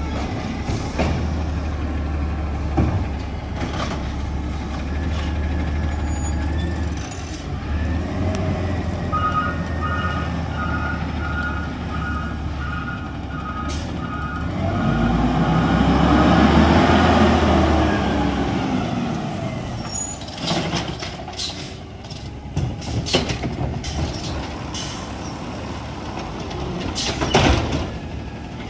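Garbage truck's diesel engine running, with a backup alarm beeping in an even series for a few seconds. The engine then revs up and back down, the loudest part, and sharp clanks and knocks follow.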